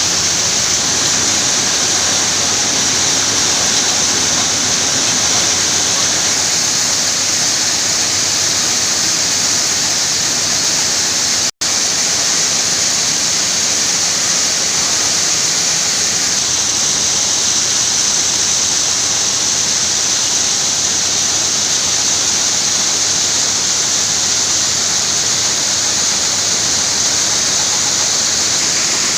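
Coffee bean sieve sorting machine running, the beans shaking and rattling across the screens in a steady, loud hiss-like rush. The sound drops out for an instant about twelve seconds in.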